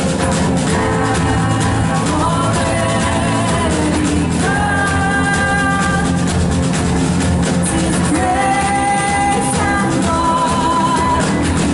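Live worship band playing a rock-style song with drum kit and guitar, with singing carried on long held notes.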